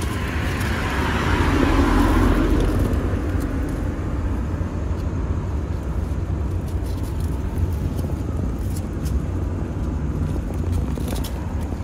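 A car passing on the road, its noise swelling over the first two seconds and fading, over a steady low rumble of traffic.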